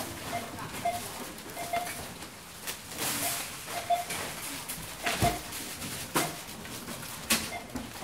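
Supermarket checkout barcode scanner beeping: short single beeps at uneven intervals, roughly one a second, as items are scanned, with scattered knocks and clicks of items being handled over a noisy shop background.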